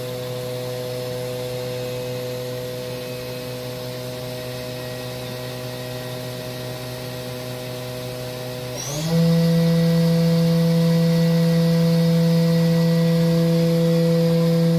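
Haas VF-4SS CNC vertical mill spindle running at a steady speed with a steady multi-tone hum. About nine seconds in it speeds up quickly to a higher speed, and the hum becomes higher in pitch and much louder.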